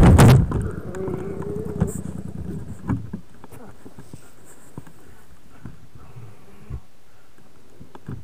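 Motorcycle crash: the loud noise of the bike going down stops abruptly within the first half second. A wavering drone follows and fades away about three seconds in, leaving only faint ticks and clicks.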